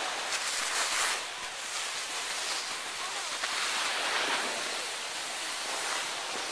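Skis sliding over packed snow: a steady scraping hiss that swells a couple of times.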